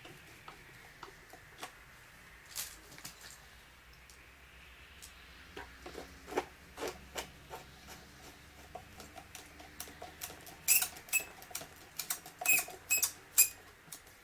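Small clicks and taps of screws and a screwdriver as the lock mortise is screwed into the door edge, sparse at first and coming thicker and louder in the last few seconds.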